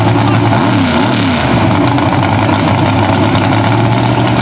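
Modified Chevy mud truck on tractor tires idling loudly, its engine note dipping and rising briefly about a second in.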